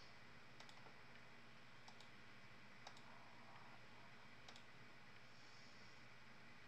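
Near silence with steady low room hiss and four faint, separate clicks spread over a few seconds.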